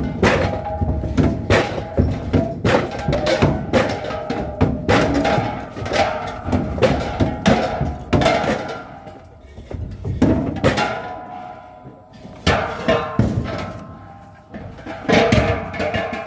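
Steel LPG gas cylinders clanking against each other and the truck's steel floor as they are set down one after another: quick irregular metal knocks, each with a short ringing tone, easing off briefly in the second half.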